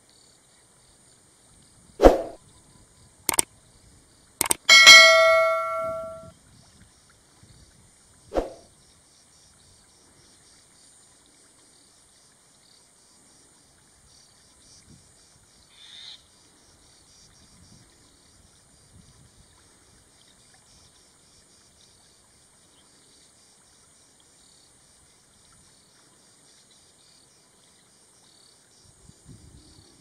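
A few sharp metallic knocks, then a piece of metal struck and ringing with a bell-like tone that fades over about a second, and one more knock a few seconds later. After that only a faint steady high hiss.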